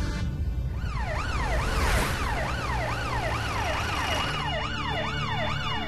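Police siren wailing up and down about twice a second, starting about a second in.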